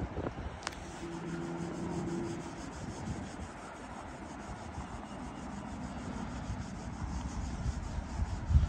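Wind buffeting the microphone in uneven low gusts over a steady hiss of outdoor drizzle, with a faint low hum for about a second and a half, starting about a second in.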